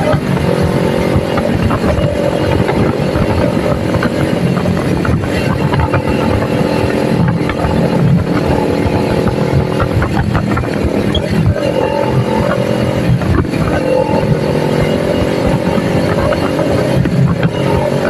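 Kawasaki Ninja 400's parallel-twin engine running steadily under way on the ride. The engine note dips briefly a few times and then climbs back.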